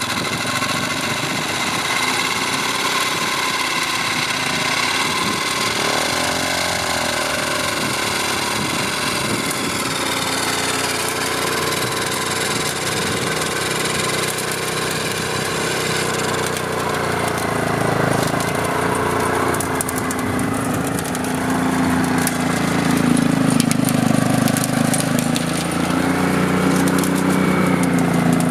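Honda Transalp motorcycle's V-twin engine running on the spot to drive a tow winch pulling a hang glider aloft. Its speed rises and falls several times, and it runs louder with a deeper note in the last few seconds.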